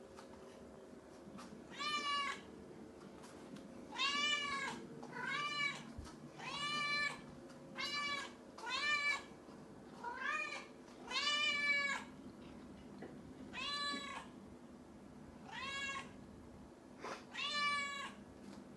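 Domestic cat meowing over and over, about a dozen drawn-out calls that rise and fall in pitch, one every second or two: the insistent meowing of a hungry cat.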